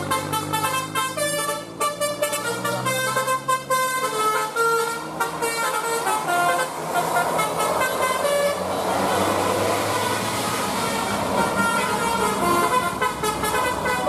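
Bus telolet horn, a multi-tone musical horn, playing a quick tune of short notes over a diesel bus engine. About two-thirds of the way in a loud rush of engine and road noise from the bus passing close takes over, with a few horn notes still sounding.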